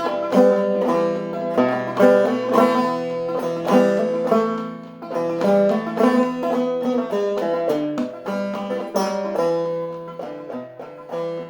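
Long-neck banjo played clawhammer style in a low open G minor tuning (eBEGB): an instrumental passage of the ballad's melody, a steady run of struck notes over ringing drone strings.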